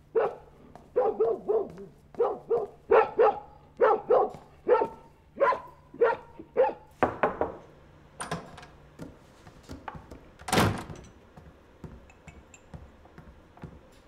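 Hard-soled footsteps on a wooden floor, about two to three steps a second with a ringing echo, stopping about seven seconds in. Then a couple of knocks on a wooden door, and one loud thud about ten and a half seconds in.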